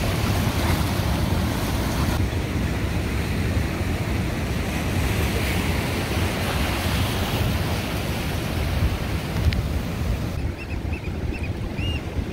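Ocean surf breaking and washing over coastal rocks, a steady rushing with wind on the microphone. Near the end, a few short bird calls repeat above the surf.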